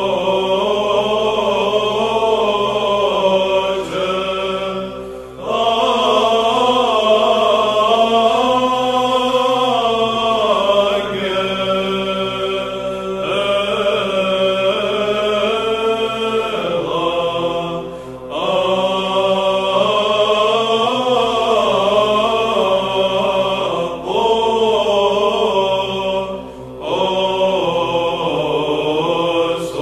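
Orthodox church chant: long, winding sung phrases over a steady held drone, broken by a few short pauses.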